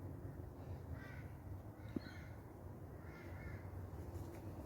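Three faint bird calls about a second apart, over a low steady hum.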